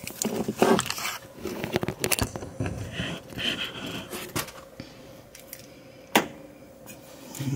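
Hands handling a condenser microphone body and its parts on a workbench: irregular rustles, scrapes and small metallic clicks, busiest in the first second or two, with one sharp click about six seconds in.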